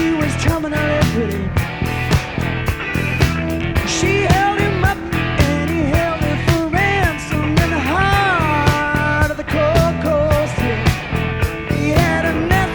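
Background rock music with drums, guitar and a singing voice, at a steady beat.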